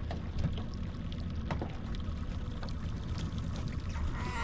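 A boat's outboard motor running steadily at trolling speed, with water sloshing along the hull and a brief rush of water near the end.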